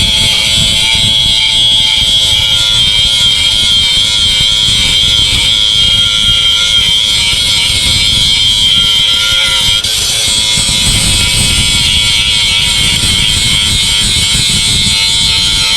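A motor running at steady speed, giving a high whine over a rough low rumble, unbroken throughout.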